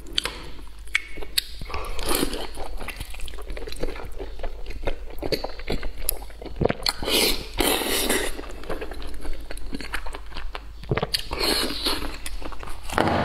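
Close-miked eating sounds: a man biting and chewing braised pork belly with green beans and enoki, with many short, irregular smacks and clicks of the mouth.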